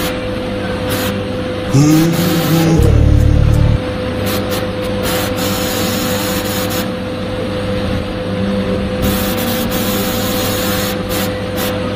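TIG welding arc burning on a 4-inch galvanized steel pipe joint: a steady hiss over the constant hum of the welding machine. About two seconds in, a louder low hum cuts in for about two seconds.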